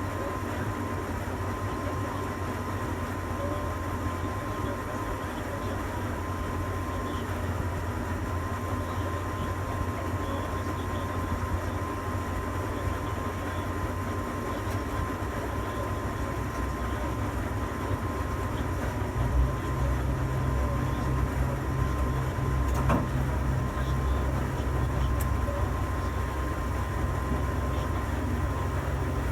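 Tower crane machinery running, heard from inside the operator's cab: a steady low mechanical hum with a thin steady whine above it. About two-thirds of the way through the hum shifts up in pitch and gets a little louder, as a crane drive changes speed.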